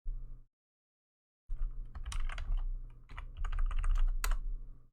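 Typing on a computer keyboard: a short burst of key clicks, a pause of about a second, then a longer run of quick typing.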